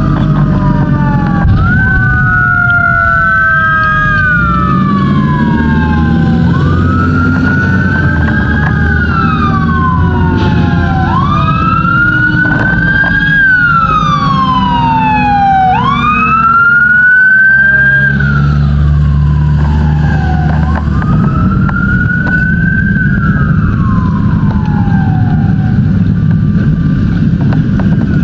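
Fire engine siren in a slow wail: each cycle rises quickly and falls slowly over about four to five seconds, and the siren dies away near the end. A heavy engine runs underneath throughout.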